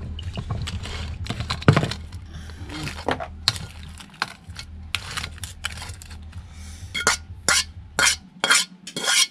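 Cooked blue swimming crabs (alimasag) scooped out of a metal wok into a plastic bowl with a plastic ladle: shells clattering and scraping against the ladle, wok and bowl. There is a run of louder knocks near the end.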